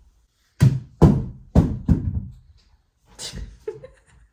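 Light-up plastic ball falling onto the floor and bouncing: four thuds in quick succession, each fading briefly, starting about half a second in.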